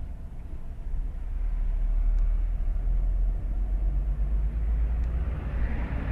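Low, steady rumble of a car driving on the road, engine and tyre noise, growing louder about a second and a half in.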